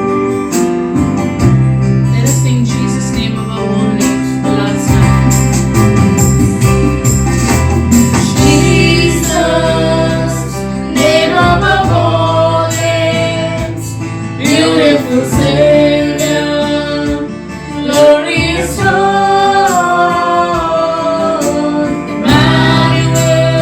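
Christian praise and worship song: voices singing a melody over a band backing with a steady beat.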